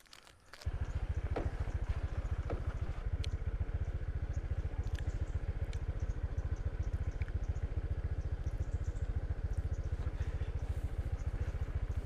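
Motorcycle engine starting about a second in, then running steadily with a rapid, even beat.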